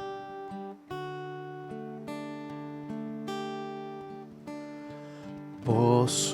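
Acoustic guitar strumming sustained chords, about one strum a second, as the introduction to a worship song. A voice comes in singing near the end, louder than the guitar.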